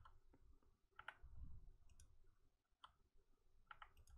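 Faint computer mouse clicks, about seven or eight scattered across a few seconds, some in quick pairs.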